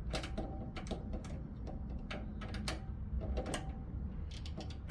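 Wrench tightening the chain adjuster lock nuts on a Harley-Davidson Sportster's rear axle, making a run of irregular metallic clicks and ticks.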